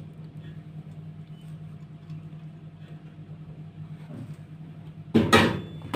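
Steady low hum, then near the end a loud, brief clatter of kitchen utensils against a strainer while tamarind mixture is being strained.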